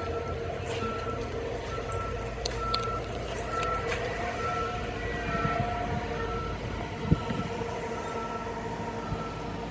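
A back-up alarm beeping steadily, roughly one or two beeps a second, over the steady running of a large vehicle's engine as the RV is moved on the lot. A single sharp knock sounds about seven seconds in.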